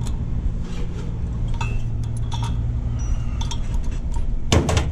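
Hand ratchet clicking irregularly as it turns the screw of a pulley puller on a blower pulley, with light metal clinks from the puller's jaws, over a steady low hum. Near the end comes a short, louder burst of metal noise, as the pulley starts to come free of the shaft.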